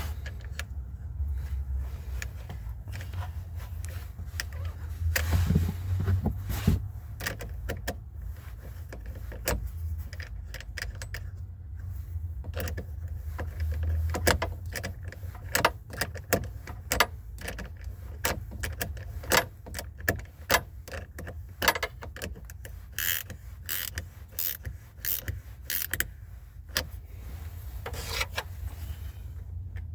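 Irregular clicks and knocks of things being handled, denser in the second half, over a steady low rumble.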